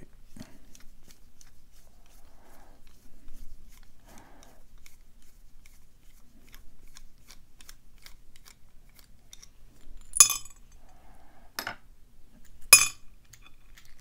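Screwdriver turning out the screw down a padlock's shackle hole, with faint regular ticks about three a second. Near the end come three sharp metallic clinks as the screw and lock parts come loose against the metal tray.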